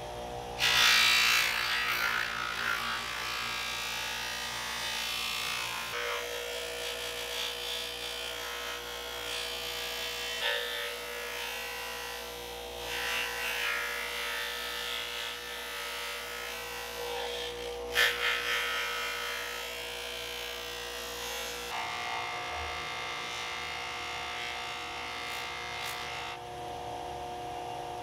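Bench grinder motor running steadily with a buffing wheel, as a metal knife handle is pressed against the wheel for polishing, giving a rubbing hiss that swells and fades. The sound changes abruptly several times.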